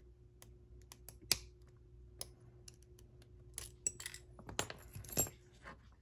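Small metallic clicks and scrapes of a C-clip being pried off the back of a brass Abus 83/45 padlock core to free the tailpiece: one sharp click about a second in, then a quick run of clicks and scraping about halfway through.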